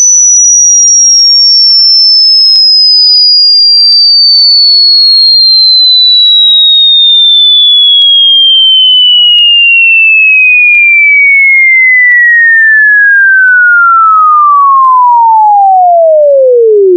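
A pure sine-wave test tone sweeping steadily downward in pitch, from a high whistle to a low hum, falling faster and faster toward the end. It is a headphone test sweep, used to check that the headphones play it cleanly in the middle of the head.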